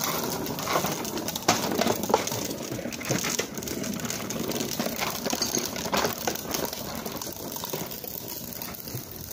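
Outdoor background sound with scattered light knocks and rustles, and a bird, likely a dove, calling faintly.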